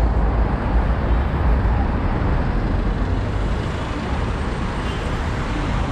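City street traffic noise: a steady, dense rumble of passing cars and buses.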